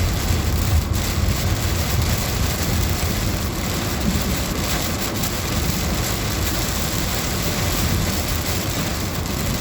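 Heavy rain pouring down on a moving car, heard from inside the cabin as a steady, dense hiss over the car's low road and engine noise.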